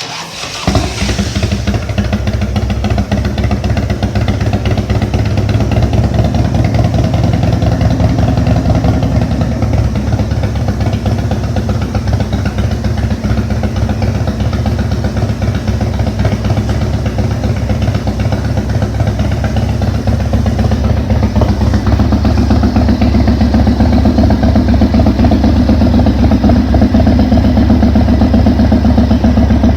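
2002 Big Dog Husky motorcycle's V-twin engine starting and then running steadily with a fast, loud exhaust pulse.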